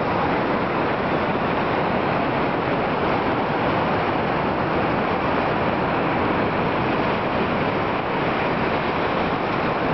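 Steady, unbroken rush of ocean surf mixed with wind noise.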